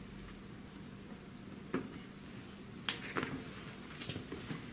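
A few scattered sharp clicks and knocks, the loudest about three seconds in, from hands and a tool working plastic body push pins and panels loose on an ATV, over a faint steady hum.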